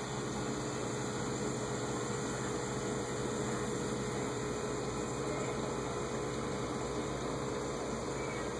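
Aquarium pump running: a steady low hum under even hiss, with a faint constant tone.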